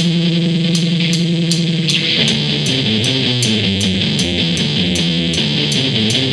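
Band music led by electric guitar and bass over a steady beat of cymbal hits. A held chord gives way to a moving riff about two seconds in.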